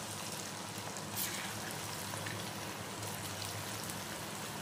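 Vegetable Manchurian balls deep-frying in fully heated oil in a kadhai: a steady sizzle with scattered small crackles.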